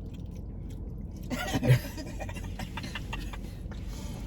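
A short burst of laughter about a second and a half in, then scattered light clicks and crackles of eating over a steady low hum.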